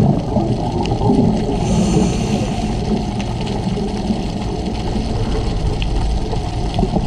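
Underwater sound of a scuba dive: a steady low rush of water, with a few faint clicks scattered through it.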